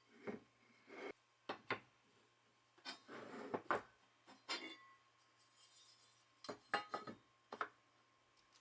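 Small metal parts and tools being handled on a workbench: a series of separate clinks and knocks, some with a short metallic ring, and a scrape a little past the third second.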